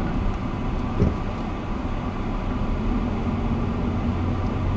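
Car interior noise while driving slowly: a steady low engine and road rumble, with a single low thump about a second in.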